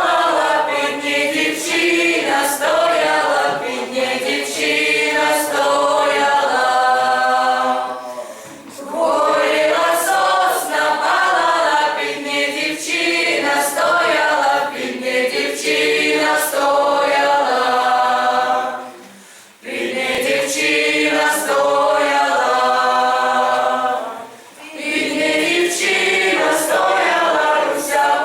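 A group of voices singing together unaccompanied, in long sung phrases with short pauses for breath about eight, nineteen and twenty-four seconds in.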